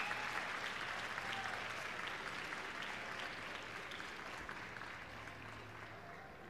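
Arena audience applauding, the clapping slowly dying away.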